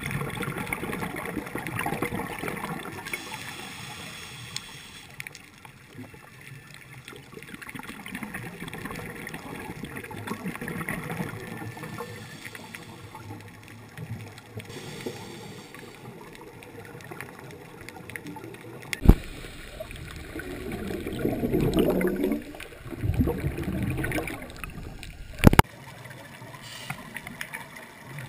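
Underwater water noise with a scuba diver's exhaled bubbles gurgling, in louder bursts in the second half. Two sharp knocks, one about two-thirds of the way through and one near the end.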